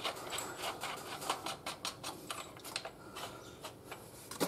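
Light metallic clicks and taps at an irregular pace from fitting the rear axle nut onto a motorcycle wheel and handling hand tools.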